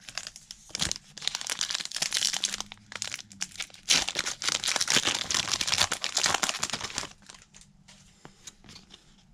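Foil wrapper of a trading-card pack being torn open and crinkled by hand, a dense crackling for about seven seconds. It dies down to faint rustling of the cards being handled near the end.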